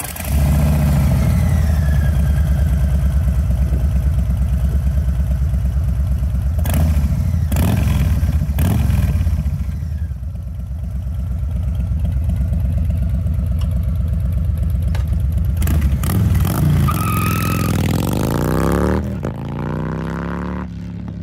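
Harley-Davidson Low Rider ST's Milwaukee-Eight 117 V-twin through aftermarket slip-on mufflers, idling loud with a loping beat just after start-up. About sixteen seconds in the bike revs and pulls away, the pitch rising and falling through the gears as the sound fades.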